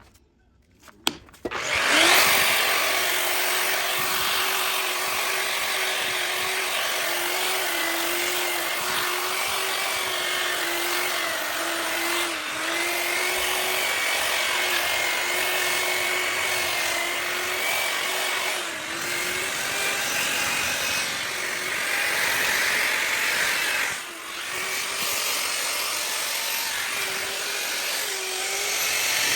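Variable-speed grinder with a sanding pad starting up about two seconds in, after a couple of short clicks, and running steadily as it sands a cast iron skillet down to bare metal. The motor's steady whine wavers slightly with the pressure on the pan and dips briefly a few times.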